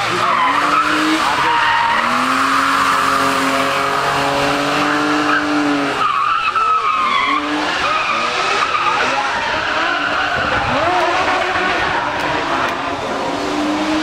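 BMW E36 drift car's engine held at high revs while its tyres squeal in a long sideways slide through a hairpin. The engine note stays steady for a few seconds, breaks off about six seconds in, then rises and falls as the throttle is worked.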